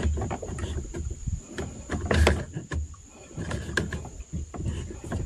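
Irregular knocks, clicks and rustling handling noise with low thumps, loudest in a sharp knock a little past two seconds in.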